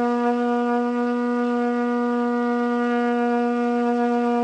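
Trumpet holding one long, steady note at an unchanging pitch and level, sounding for as long as the player keeps blowing: a long sustain.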